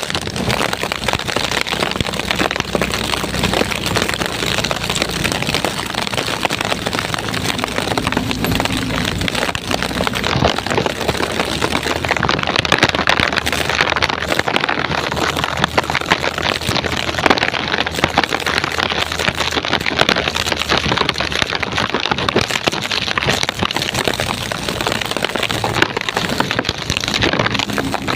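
Heavy rain from a rainstorm pouring and pattering densely on surfaces. A low steady hum runs beneath it for about the first ten seconds, then stops.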